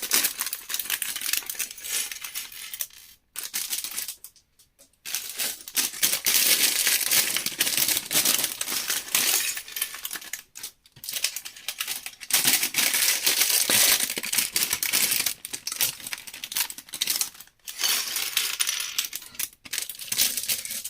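Small plastic Lego pieces being tipped out of their bags: a dense clatter of bricks falling and scattering on a hard surface, with some crinkling of plastic bags. It comes in several bouts separated by short pauses.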